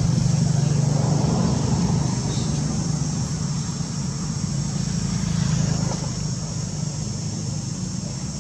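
A steady low engine hum, easing off a little after about six seconds, over a constant high hiss.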